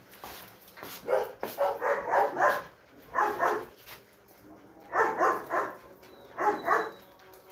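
Dogs barking in four short runs of quick, repeated barks.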